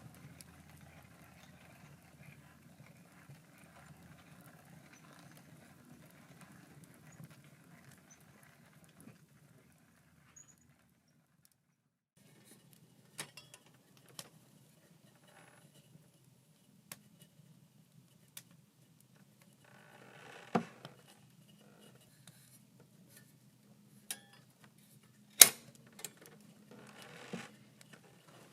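Quiet handling sounds: scattered light clicks and knocks, with one sharper knock near the end. Before them, a soft steady hum runs for about the first ten seconds and stops.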